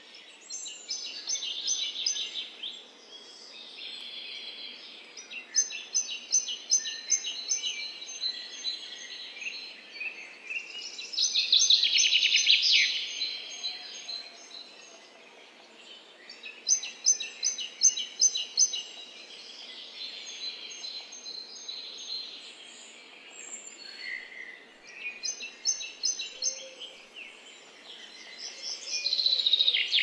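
Small garden songbirds calling and singing: repeated runs of quick high-pitched notes, with louder song about a third of the way in and again near the end.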